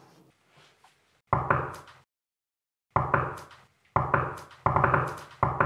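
Knocking on a door: five bouts of sharp knocks, mostly two or three quick raps each, starting about a second in and each ringing out briefly.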